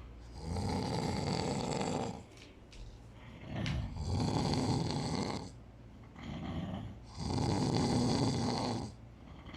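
A sleeping man snoring loudly: three long snores, each about a second and a half, coming roughly every three and a half seconds, with a shorter, weaker snore between the second and third.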